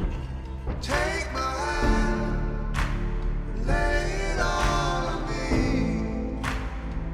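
Background music: a song with a singing voice over accompanying instruments and a steady bass.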